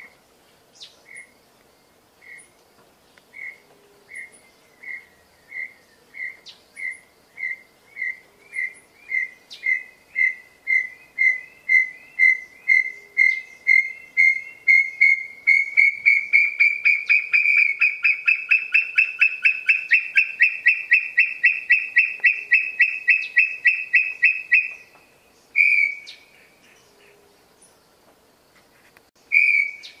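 Tinamou (inhambu) song: a long series of clear whistled notes that begin slow and spaced, then speed up, grow louder and rise slightly in pitch into a fast trill. The trill stops abruptly about 25 seconds in, followed by two more single whistles near the end.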